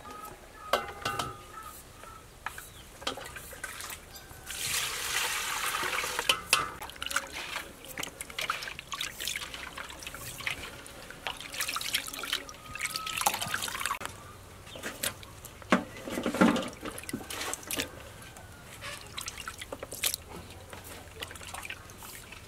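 Fish roe being washed by hand in a steel bowl of water: irregular splashing and trickling as the roe is squeezed and lifted out, with drips and small clicks.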